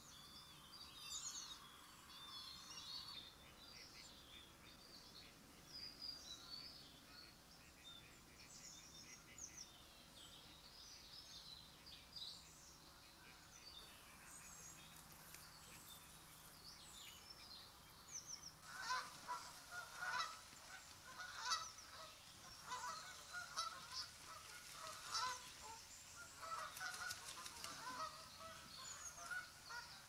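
Small birds give thin, high chirps through the first half. From about two-thirds of the way in, a flock of geese, most likely Canada geese, honks repeatedly and more loudly.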